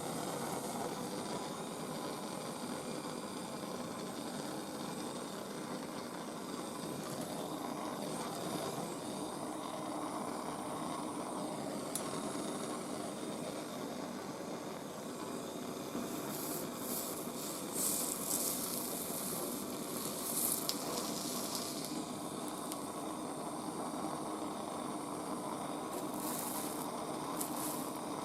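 Gas blowtorch flame burning with a steady hiss while heating a copper part for soldering, with a few brief sharper hissing bursts over the last third.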